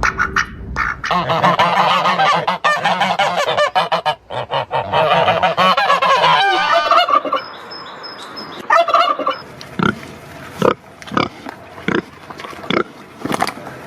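Flock of geese honking: many overlapping calls for the first half, thinning to separate single honks later on.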